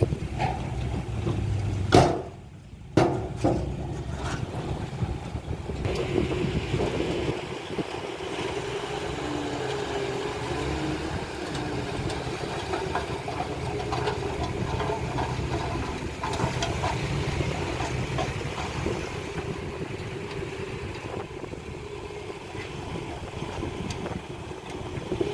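Diesel engine of heavy earthmoving machinery running steadily. Two sharp loud knocks come about two and three seconds in.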